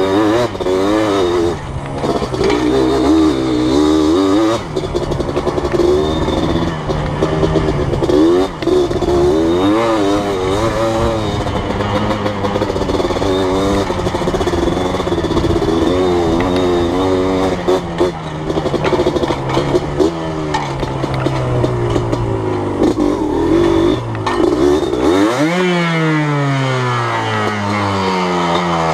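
Yamaha Blaster ATV's two-stroke single-cylinder engine under way, revving up and down over and over with the throttle. About 25 seconds in the revs drop and then climb again steadily.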